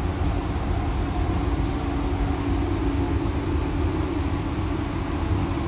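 Steady drone of a paint spray booth's ventilation fans running, with a constant low hum and rumble.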